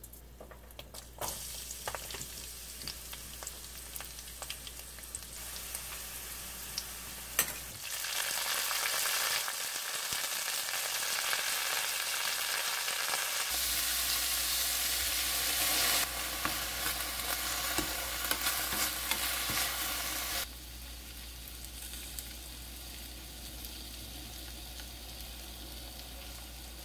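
Garlic and cabbage stir-frying in hot oil in a wok: a steady sizzle with scattered scrapes and taps of a spatula. The sizzle gets much louder about eight seconds in, then drops back to a softer steady hiss about twenty seconds in.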